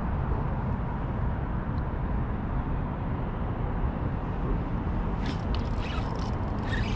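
Steady low rumbling outdoor noise on the microphone, with a few sharp clicks and taps about five seconds in and again near the end from handling the fishing rod and spinning reel.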